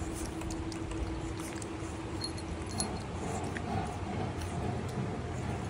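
Small metal bells on pug puppies' collars jingling faintly in scattered little ticks as the puppies move, over a steady low background rumble.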